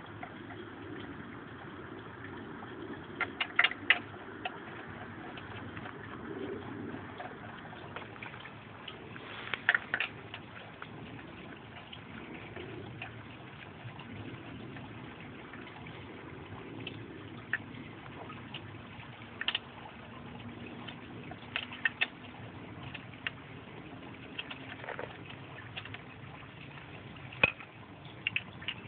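Lug nuts being threaded and tightened onto a car wheel with a lug wrench: scattered sharp metallic clicks and clinks, some in quick little clusters, over a steady background hiss.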